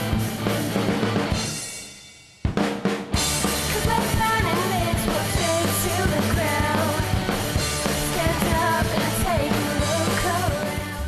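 Rock band music with a full drum kit. About two seconds in it fades out, and a new song cuts in with sharp drum hits, then a bending lead melody over a steady bass and drums.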